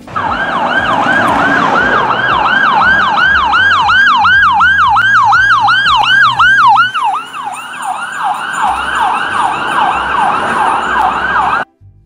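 Ambulance electronic siren on fast yelp: a loud, rapidly repeating rise-and-fall wail, about three cycles a second. It blurs into overlapping sweeps in the later part and cuts off suddenly near the end.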